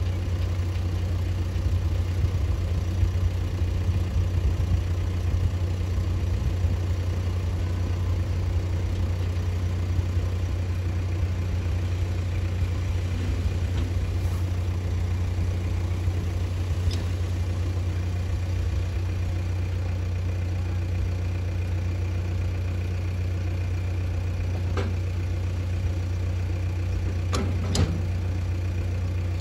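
Sonalika DI 734 tractor's diesel engine running steadily while its hydraulics tip a trolley loaded with brick mud. A few short knocks come near the end.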